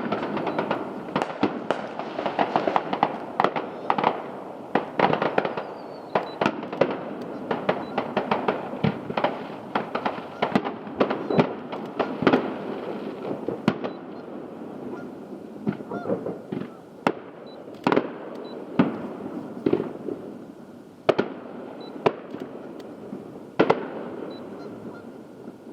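Aerial fireworks: a dense barrage of bangs over constant crackling, thinning after about halfway into fewer separate loud reports a second or two apart.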